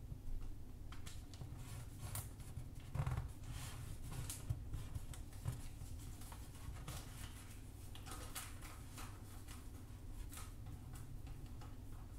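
Origami paper rustling and crinkling as it is folded and creased by hand, in short scattered swishes and crackles, the loudest about three seconds in.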